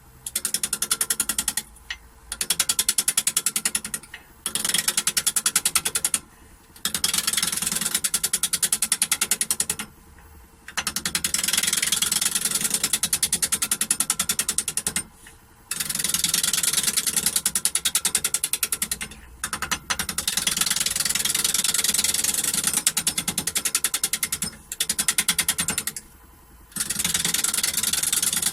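Roughing gouge cutting a wood blank spinning on the faceplate of a Holzmann D460FXL wood lathe, in about eight passes a few seconds long with short pauses between. Each pass is a fast, even rattle of the gouge meeting the spinning wood.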